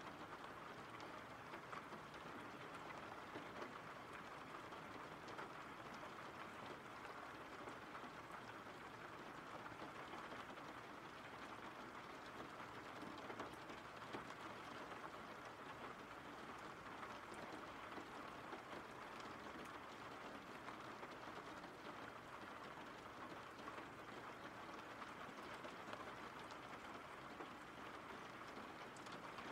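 Steady, faint rain: an even hiss with scattered ticks of single drops.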